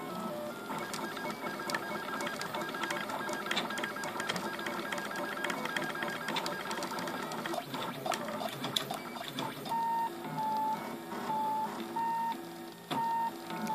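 RepRap 3D printer's stepper motors whining as the print head moves while printing: for most of the stretch a busy mix of changing tones with many small ticks. About ten seconds in it settles into a steady whine switching on and off in short, even pulses.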